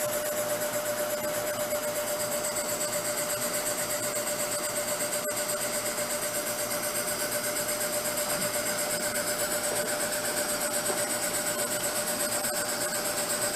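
Antique belt-driven refrigeration compressor running steadily, turned by its electric motor, with a steady tone over an even, fast pulsing.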